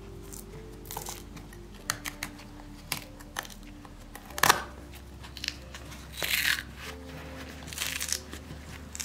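Thread stitching being picked out of a leather boot's heel with a pointed hand tool: scattered small clicks and snaps as stitches are cut, the sharpest about four and a half seconds in, and a scratchy tearing a little after six seconds as the layers are pulled apart. Soft background music runs underneath.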